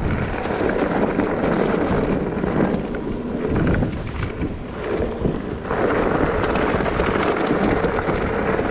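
Mountain bike rolling fast over a loose stony gravel track: tyres crunching and the bike rattling in a steady stream of small knocks, with wind buffeting the microphone. The rattle eases for a couple of seconds in the middle.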